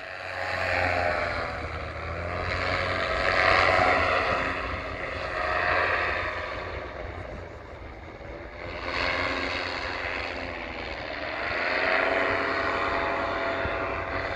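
Paramotor engine and propeller running hard as the powered paraglider takes off and climbs, heard from the ground, the sound swelling and fading every two to three seconds.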